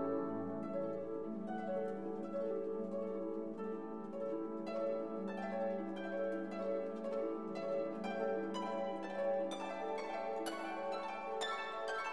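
Instrumental background music: held pitched notes with a plucked string melody whose notes come faster from about halfway.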